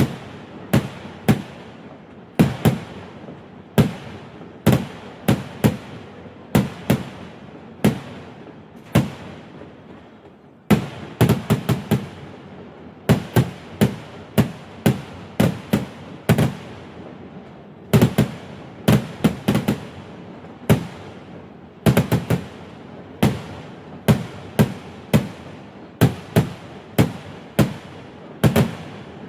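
Fireworks going off in rapid strings of sharp, echoing bangs, several a second in clusters, with a brief lull about ten seconds in.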